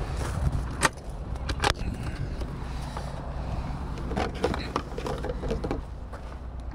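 Handling noises from a motorhome's outside storage locker: two sharp knocks in the first two seconds, then plastic rattling and rustling as a funnel is taken out, over a steady low rumble.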